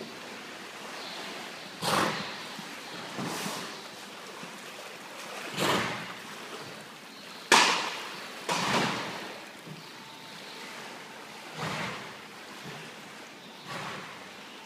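Pool water splashing and sloshing as an animal swims through it: a steady wash of moving water broken by about seven louder splashes, one to two seconds apart.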